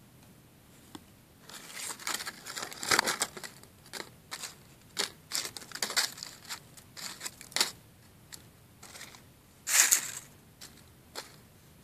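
Dry leaves and twigs crunching and rustling in irregular bursts with sharp crackles, the loudest burst a little before the end.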